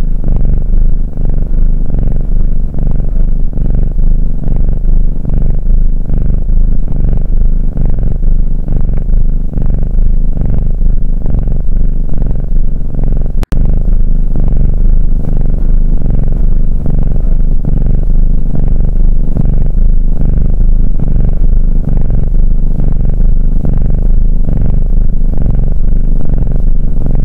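Domestic cat purring loudly and steadily, close up, with a brief break about halfway through.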